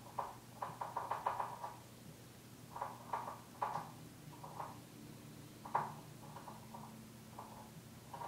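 Irregular clusters of quick, light knocks or taps, coming in short bursts with pauses between, the sharpest single tap a little before the last few seconds.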